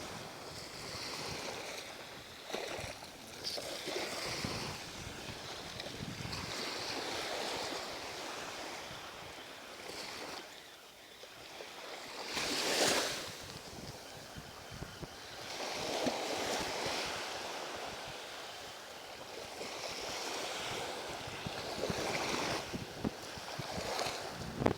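Sea waves washing in, a rushing noise that swells and fades every few seconds, loudest about halfway through, with wind buffeting the microphone.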